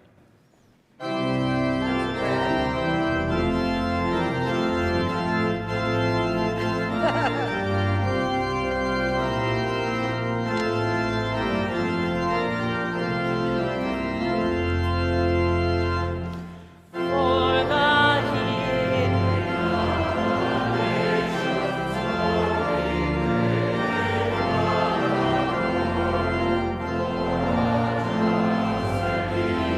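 Church organ playing a hymn introduction in full, sustained chords, breaking off briefly about 16 seconds in. The congregation then begins singing the hymn with the organ accompanying.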